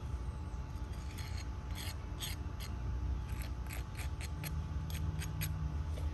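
Small metal hand trowel scraping and digging through coarse, mulch-like potting soil in a small wooden bonsai pot. It makes a run of short, irregular scratchy scrapes, about two or three a second, that start about a second in and stop shortly before the end.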